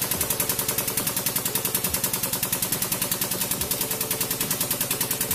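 Hydraulic press running as its ram lowers onto eggs, a steady rapid mechanical chatter of about a dozen pulses a second.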